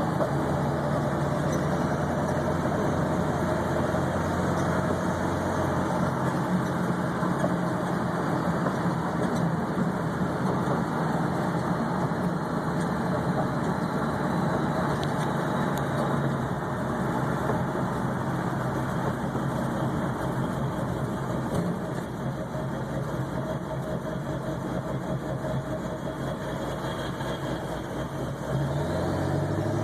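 Ford 7.3 Powerstroke V8 turbo-diesel running with a steady drone. Its low note shifts a few times, and the level steps up shortly before the end. The engine has a high, rough idle and a surge in gear, which the owner suspects comes from a bad injection control pressure sensor or fuel pressure regulator.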